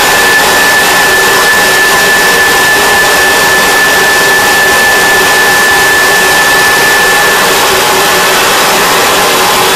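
Leaf blower running steadily at full blast: a loud rush of air with a steady high whine on top, the whine fading out near the end.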